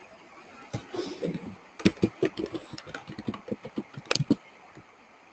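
Computer keyboard typing: a quick, irregular run of keystrokes, several a second, with the loudest key presses about two seconds and four seconds in.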